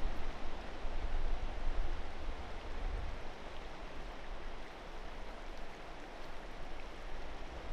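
Outdoor ambience: a steady rushing hiss, with wind buffeting the microphone as a low rumble that eases off about three seconds in.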